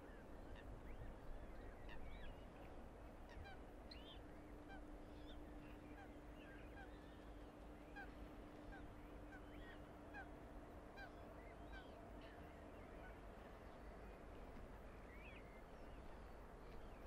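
Faint, scattered short calls of waterbirds on open water over a low, constant background rumble. A steady low hum comes in a few seconds in and fades out near the two-thirds mark.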